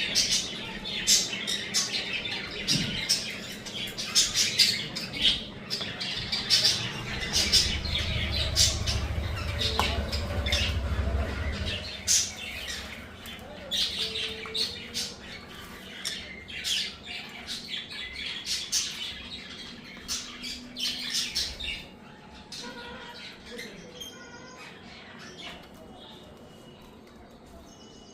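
Pet conures squawking over and over in short, harsh calls, thinning out and growing fainter near the end. A low rumble runs underneath for a few seconds early on.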